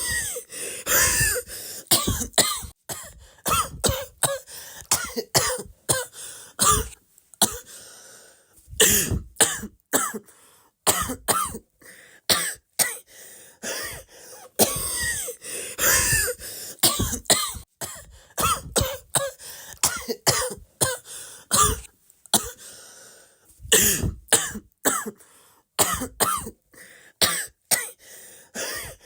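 A person coughing over and over: short, sharp coughs in quick irregular runs, some with a hoarse voiced edge, broken by brief pauses.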